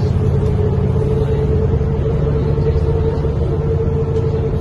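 Mercedes-Benz O405N2 city bus with a ZF Ecomat 5HP automatic gearbox, heard from inside the passenger cabin while driving at a steady pace: a low, even engine and driveline drone with a steady whine over it.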